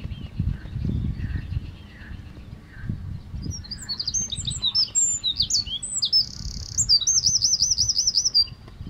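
Eurasian wren singing: a burst of rapid, very high notes starting about four seconds in, running through a buzzy rattle and ending in a fast trill, about five seconds in all.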